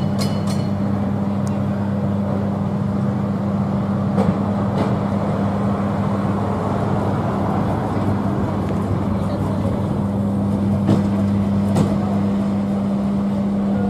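Street vehicle noise: a steady low engine hum throughout, a car passing about six seconds in, and a few sharp clicks.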